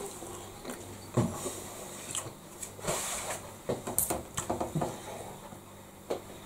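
Eating at a table: chewing, with a series of light irregular knocks, clicks and rustles as the food is handled on a plate, the loudest about a second in and about four seconds in.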